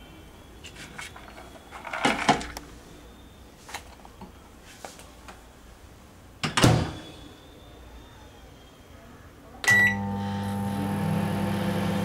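Bowl handled and a microwave oven door shut with a loud knock about six and a half seconds in; near the end a short keypad beep, then the oven starts running with a steady hum for its 30-second heating of the peanuts.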